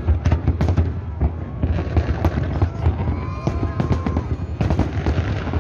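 Large fireworks display: many quick, overlapping bangs and crackles of aerial shells bursting, over a dense low rumble.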